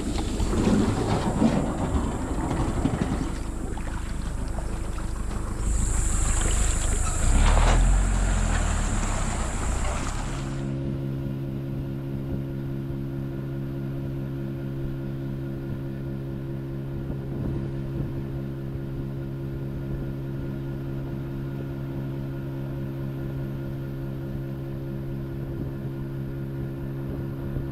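Motorboat's outboard motor running with wind buffeting the microphone and water noise. About ten seconds in the sound changes abruptly to a steady, even engine hum that holds for the rest of the stretch.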